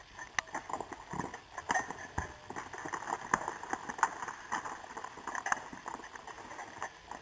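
Footsteps crunching and knocking over loose rock and gravel in irregular steps.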